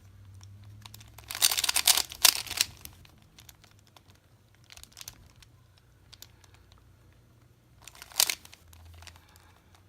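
3x3 Rubik's cube being turned by hand: a quick flurry of plastic layer clacks about a second in, scattered single clicks, then another short burst of turns near the end.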